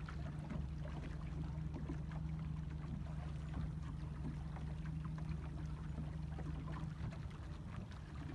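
A small motorboat's engine running at idle with a steady low hum, under wind and water noise. The deepest part of the hum drops away about seven seconds in.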